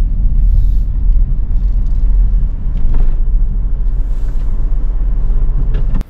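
Car driving on the road: a steady low rumble of road and engine noise.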